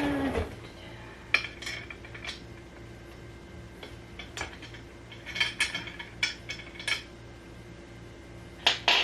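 Flat-pack furniture parts and hardware clinking and knocking as pieces are fitted together, in scattered sharp clicks with a busier run in the middle, after a short creak at the start.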